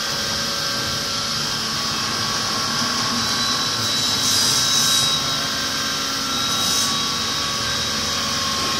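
Two-spindle CNC drilling and tapping machine running, its spindle motors giving a steady whine with several steady tones. Two short hissing bursts come through, one about four and a half seconds in and a shorter one just before seven seconds.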